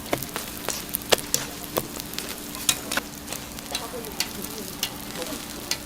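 Hotteok sweet pancakes frying in oil on a hot griddle: a steady sizzle broken by frequent sharp, irregular clicks and pops, with a steady low hum underneath.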